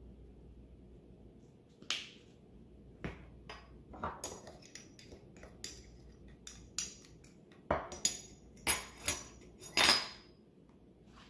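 Kitchen utensils handled over a small ceramic dish and a wooden cutting board: a spice jar shaken and set down, and a metal spoon clinking against the dish and tapping the board. The sound is a run of sharp clicks and clinks, sparse at first and denser and loudest near the end.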